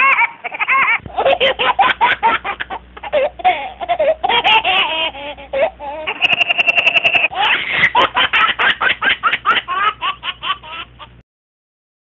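Laughing sound effect: a baby's giggling mixed with another voice laughing, a long string of quick ha-ha bursts that cuts off about a second before the end.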